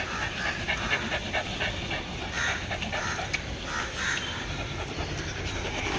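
Rajapalayam puppy panting, a run of short breathy puffs.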